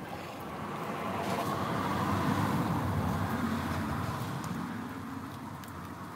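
A road vehicle drives past, its sound swelling over the first couple of seconds, peaking around the middle and fading away.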